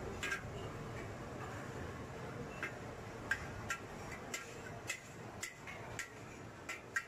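Metal spatula and ladle clinking and scraping against a wok as fried noodles are tossed and scooped out onto a plate: about ten sharp clinks at uneven intervals over a steady hiss.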